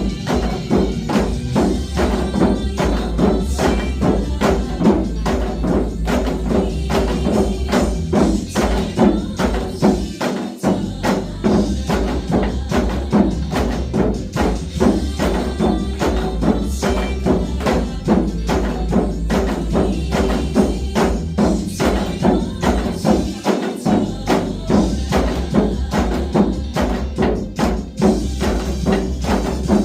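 Janggu (Korean hourglass drums) played together in a basic disco-janggu rhythm, with quick, even strokes over a disco backing track that has a steady bass beat.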